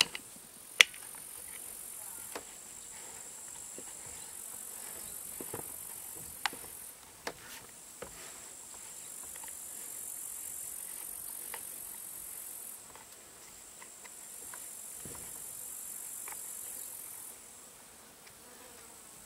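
Insects chirring high and steady, the chorus rising and dropping away in stretches of a few seconds. Over it come scattered small clicks of plastic and metal chainsaw parts being handled, the sharpest about a second in.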